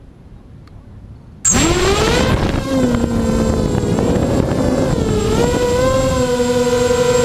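Diatone FPV250 quadcopter's brushless motors and propellers spinning up suddenly about a second and a half in, a rising whine that settles into a loud steady buzzing whine whose pitch wavers with the throttle. Heard close up through the onboard GoPro.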